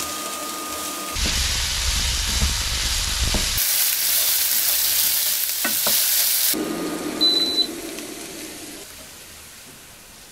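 Diced zucchini frying in olive oil in a pan, sizzling and stirred with a wooden spoon. The sizzle jumps abruptly in loudness a few times, with a short high beep about seven seconds in, then dies down over the last few seconds.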